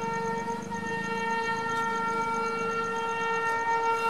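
An Indian Railways locomotive's horn sounding one long, steady blast at a single pitch as the train approaches. A low rumble from the train runs underneath.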